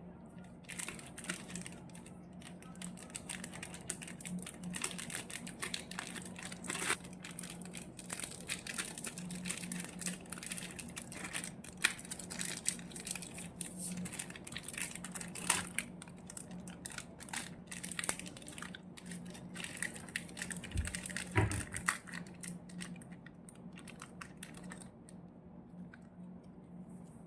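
Ice cream wrapper crinkling and tearing as it is unpacked by hand, in a continuous irregular crackle. A faint steady low hum runs underneath, and a couple of dull knocks come about three quarters of the way through.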